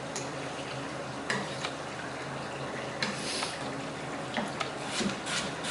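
Water running steadily from a kitchen tap, with a few light knocks and clinks that come more often near the end.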